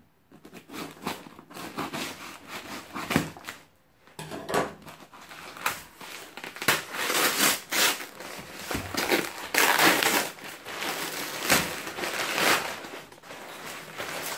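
Brown kraft packing paper being pulled out of a cardboard box and crumpled by hand: a long run of loud, irregular rustling and crinkling, with a few knocks from the box being handled.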